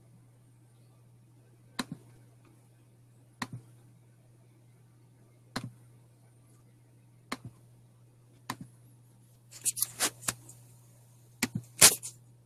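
Computer mouse and keyboard clicks: short sharp clicks, mostly in quick pairs, every second or two, then a faster run of several clicks near the end. A low steady hum sits under them.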